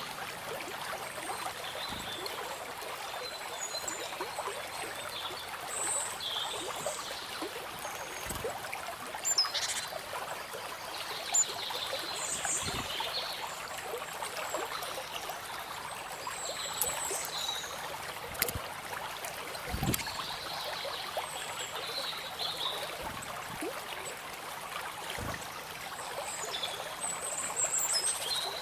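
River or stream water running and trickling steadily, with birds chirping on and off in short, high calls and a few soft low thumps.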